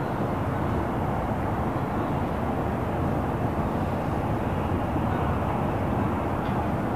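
Calm harbour ambience made up of a steady low rumble of distant traffic, with a faint steady hum underneath.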